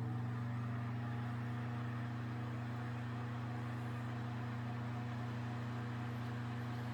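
Early-to-mid-1950s Victor Electric Products Victron 10-inch table fan running at its single speed, held stationary: a steady electric-motor hum with the even rush of air from its aluminum blades. It runs smoothly, with a bit of vibration noise.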